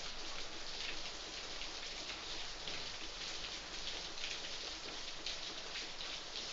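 Cloth duster wiping a whiteboard in repeated strokes, a soft scratchy hiss that swells with each stroke.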